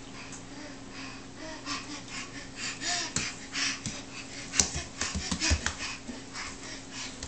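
A crawling baby breathing in quick, heavy huffs, with hands and knees slapping and knocking on a tile floor; a sharp knock comes about four and a half seconds in, followed by a few thumps.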